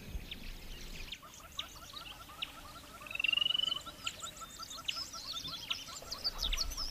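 A natural chorus of small animal calls: a steady run of short chirps about five a second, scattered higher chirps, and a brief rapid trill about three seconds in that is the loudest sound.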